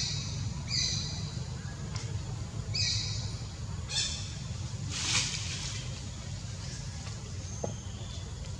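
Four short, high-pitched animal calls in the first four seconds, then a brief hiss about five seconds in, over a steady low hum.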